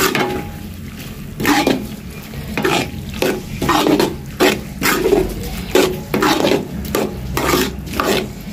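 Long steel ladle stirring and scraping a thick squash curry around a steel karahi, in regular strokes about one and a half a second, with the curry sizzling in the pan.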